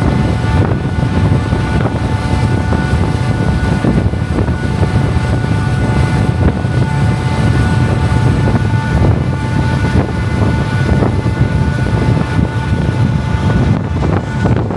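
Steady low drone of a fastcraft's engines, mixed with water rushing along the hull and wind on the microphone, heard from the open deck as the boat slows down.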